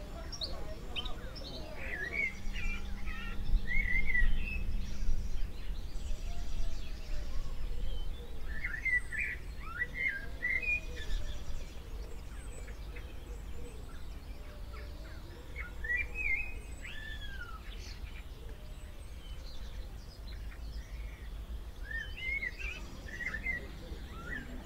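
Small birds chirping in short scattered phrases, over a steady low rumble of outdoor background noise.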